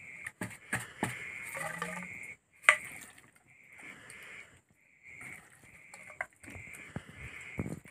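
Wet squelching and clicking of hands scooping masala-marinated chicken pieces from a steel bowl and stuffing them into a green bamboo tube. There is a single sharp knock about two and a half seconds in.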